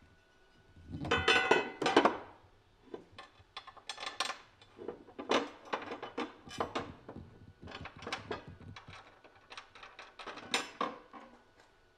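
Metal clinking and clanking as the BMW G80 M3's factory center brace is handled and bolted up under the car, with bolts and tools knocking against it. The loudest clanks, with a brief metallic ring, come about a second in, followed by irregular lighter clinks.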